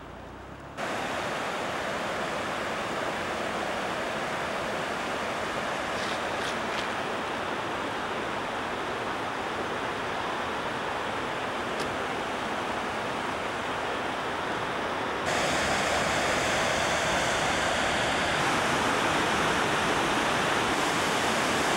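Rushing white water of a river rapid, a steady even rush that becomes louder about fifteen seconds in.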